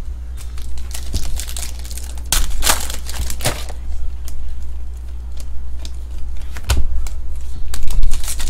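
Foil trading-card pack wrapper crinkling and tearing open, with cards sliding and rustling against each other in hand. The crinkling comes in clusters, loudest near the end.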